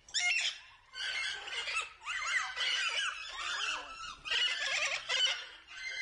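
Lorikeets chattering and screeching in four or five quick bursts of short rising and falling notes, with brief pauses between.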